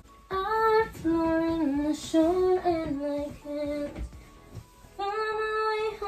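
Song with a female voice singing long, held notes; the singing drops away briefly about four seconds in, then comes back.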